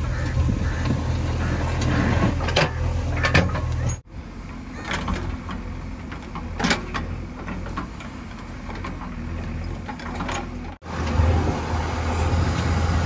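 JCB 3DX backhoe loader's diesel engine running steadily under load, with sharp scrapes and clicks as the bucket digs through grass and track ballast. The engine sound drops away abruptly about 4 seconds in and comes back louder near the end.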